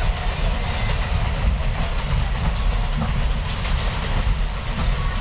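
Subway train running: a steady low rumble with scattered short clicks.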